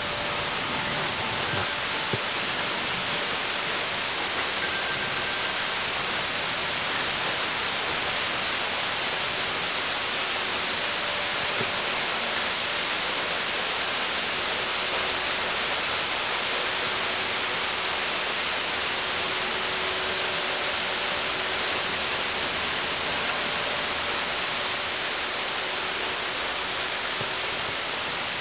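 Thunderstorm rain falling steadily: a continuous, even hiss.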